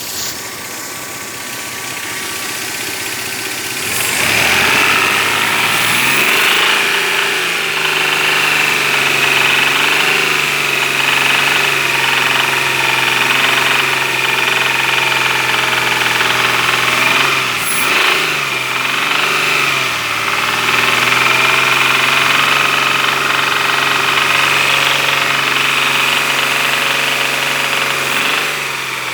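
Engine running with a knock in it; the revs rise about four seconds in, dip and pick up again a little past the middle, and fall back near the end.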